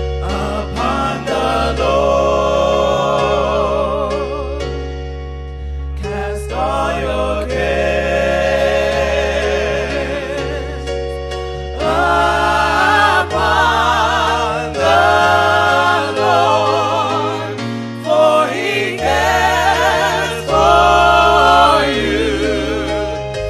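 Gospel music: a sung melody with vibrato in long phrases over held low bass notes.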